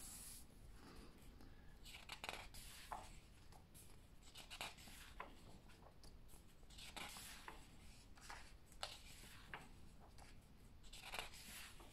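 Faint rustling of the paper pages of a thick comic omnibus being turned and smoothed flat by hand: a series of soft swishes and light paper ticks.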